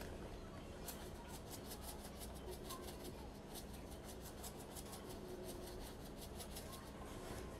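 Black pepper being dispensed over a bowl of tuna salad: faint quick dry ticks, a few a second.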